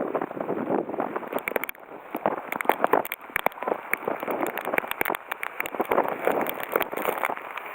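Typhoon wind and heavy rain, with many sharp taps of raindrops striking close by and a brief lull about two seconds in.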